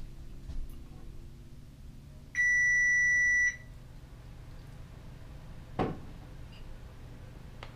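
Oven beeping once, a steady high-pitched beep about a second long, signalling that it has finished preheating to 375°. A single short knock follows a couple of seconds later.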